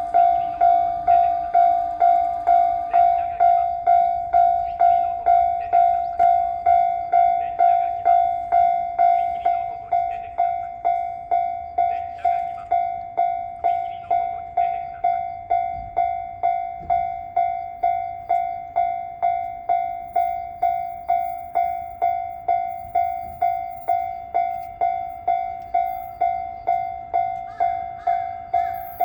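Japanese level-crossing alarm ringing: an electronic bell dinging on one steady pitch, about twice a second, without a break, a little quieter after about ten seconds.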